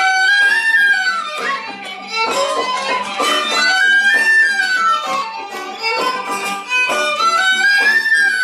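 Live Irish traditional jig played on fiddle and small flute in unison over bodhrán and strummed acoustic guitar, the melody running in quick arching phrases that repeat every few seconds.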